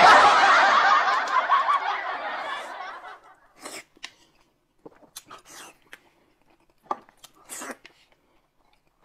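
A burst of group laughter, like a laugh-track sound effect, that starts suddenly and fades out over about three seconds, followed by a few short, scattered eating sounds as noodles are eaten.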